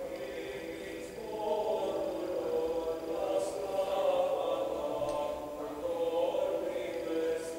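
Background music: a choir singing a slow chant over a steady held note.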